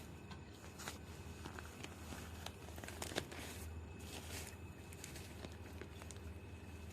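Newspaper rustling and crinkling in short, scattered bursts as a kitten burrows and plays under it, with a sharper crackle about three seconds in.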